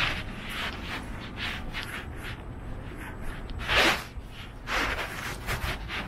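Footsteps of someone walking on a hard tile floor, about two steps a second, with one heavier step about four seconds in, over a low steady rumble.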